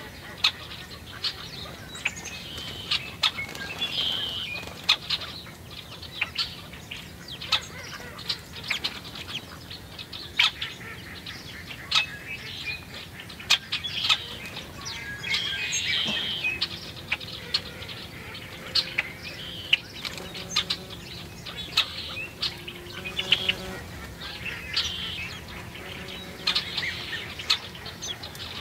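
Small birds chirping at a tube seed feeder, mixed with frequent sharp clicks and taps as they peck and land on the feeder, and wing flutters.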